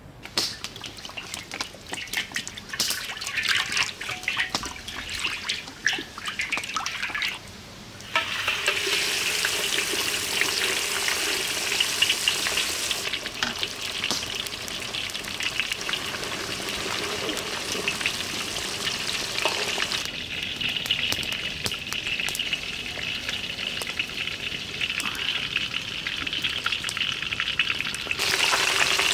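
Spice-coated mackerel deep-frying in hot oil in a steel wok: a dense, steady sizzle that starts about eight seconds in. Irregular crackles and clicks come before it.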